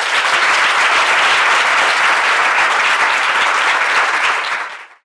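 Audience applauding steadily, a dense mass of handclaps, fading out near the end.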